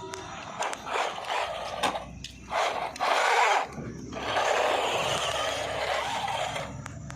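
High-speed RC car running: bursts of electric motor whir and tyre noise that stop briefly a couple of times, with a few sharp knocks.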